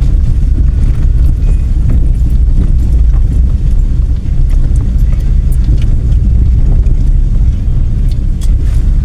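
Car on the move: a loud, steady low rumble of road and engine noise, with scattered faint clicks and rattles.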